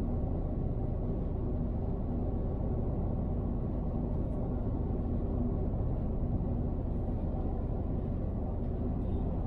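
Steady low rumble of a car driving on a motorway: road and engine noise.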